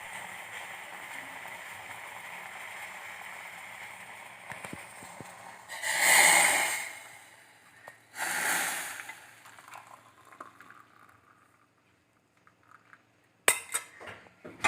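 Hot kadha poured out of the saucepan in two short pours, after a steady low hiss, with a few sharp clinks near the end.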